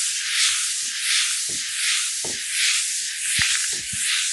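Folded sheet of fine 320-grit sandpaper rubbed by hand in circles over a hardwood butcher block: a steady raspy hiss that swells and fades with each stroke.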